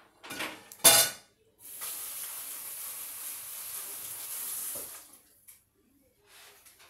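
A loud, sharp clunk about a second in, then water running from a kitchen faucet for about three seconds before it is shut off.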